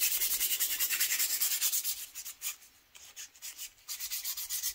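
Hand sanding a carved hardwood spatula with fine-grit sandpaper: quick back-and-forth scratchy strokes of paper on wood, with a short break in the middle before the strokes resume.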